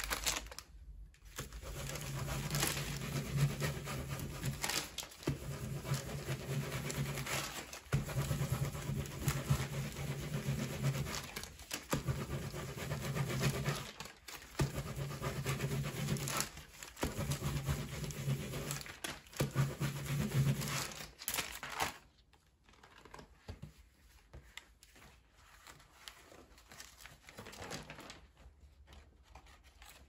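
Baren rubbing over the back of a sheet of paper laid on an inked woodblock: a dry, scratchy rasp in runs of a few seconds with short breaks. It stops about 22 seconds in, and faint paper rustling follows as the print is peeled off the block.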